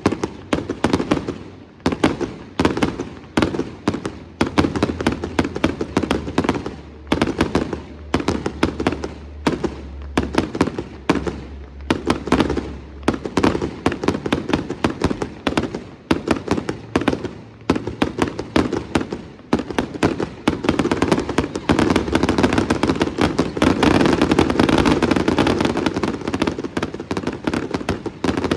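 Display fireworks going off in quick succession, a steady run of sharp bangs and crackling that builds into a dense, almost continuous barrage in the last third.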